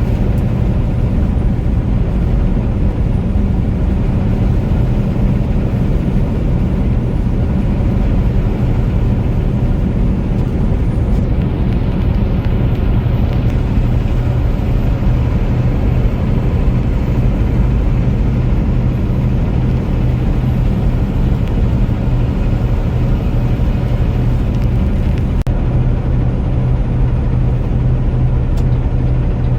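Steady engine and road drone of a vehicle cruising at highway speed, heard from inside, with a constant low hum.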